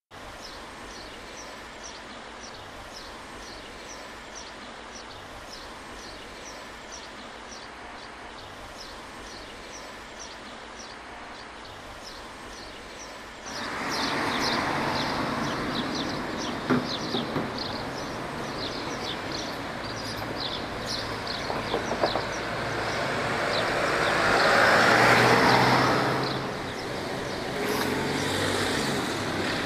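Street ambience: a bird chirping repeatedly, about two chirps a second, over a faint steady background. Almost halfway through, louder road traffic noise cuts in, and one vehicle swells past loudly a few seconds before the end.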